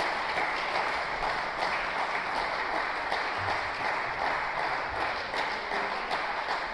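Spectators applauding steadily, a dense patter of hand claps.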